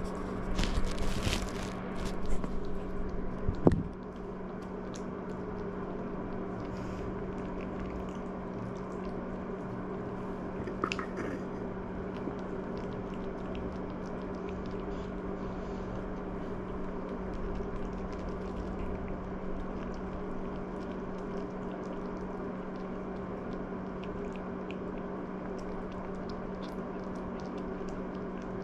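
Maltese puppy chewing and crunching small pieces of dry kibble, faint scattered clicks over a steady low hum. Rustling and bumps in the first four seconds end in one sharp knock.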